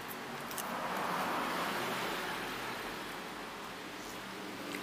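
Road traffic going past: a steady rushing noise that swells about a second in and then slowly fades.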